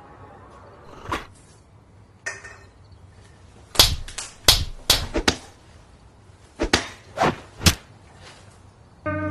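A series of about ten sharp impacts, like knocks or smacks, irregularly spaced, the loudest bunched together a few seconds in.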